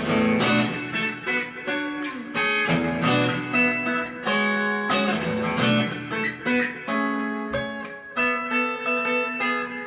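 Fender Acoustasonic Telecaster played through an amp: an instrumental passage of picked single notes and short runs, with some notes held.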